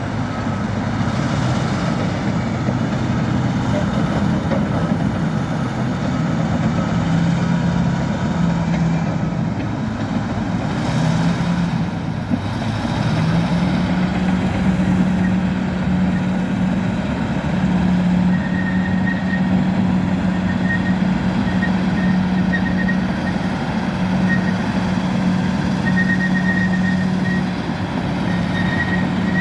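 Bulldozer's diesel engine running steadily with a low drone; its pitch wavers, then holds steady from a little before halfway. Short high-pitched tones come and go through the second half.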